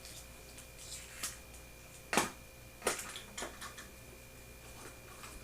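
A few faint, short clicks and taps from makeup packaging being handled, the sharpest two about two and three seconds in, over a faint steady electrical hum.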